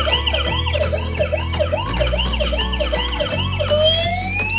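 Battery-operated toy ambulance's electronic siren sounding: a fast rising-and-falling yelp of about four whoops a second, changing near the end to a slower rising wail.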